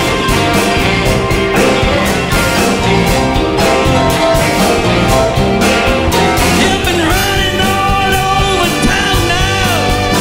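Live soul band playing: drums, bass, electric guitars, keyboards and a horn section of trombone, trumpet and saxophone, with a singer's voice over the band.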